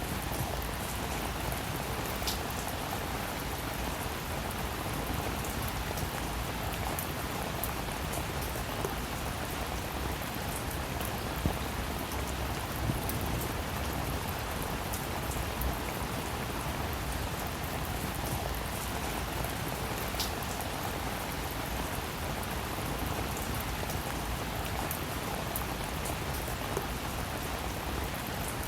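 Steady rain falling, with scattered individual drops ticking on a surface.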